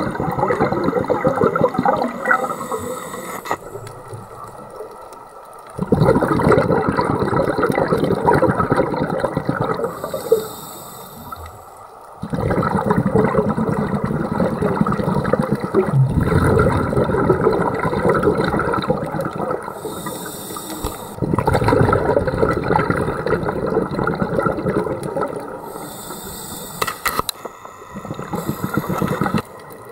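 Scuba diver's exhaled air bubbles gurgling out of the regulator, heard through an underwater camera, in rounds several seconds long with quieter pauses for the in-breath.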